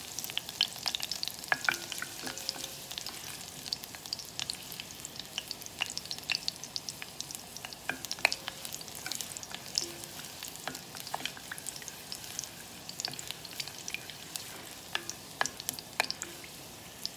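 Garlic frying in hot olive oil: a steady sizzle with irregular crackles and pops, stirred with a wooden spoon, as the garlic browns toward golden.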